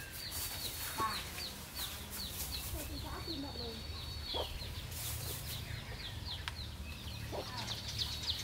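Chickens clucking, with a run of short, high, falling chirps repeating a few times a second and a few lower calls now and then. Under them, a faint scratching of a plastic comb through hair.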